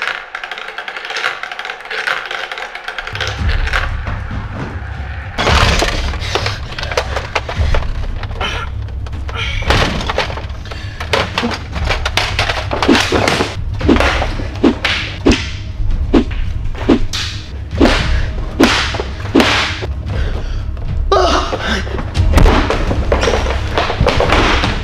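Background action music: a heavy bass beat comes in about three seconds in, followed by a long run of sharp, evenly spaced percussive hits.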